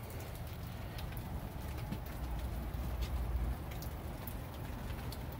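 Quiet outdoor background: a steady low rumble and hiss with a few faint scattered taps.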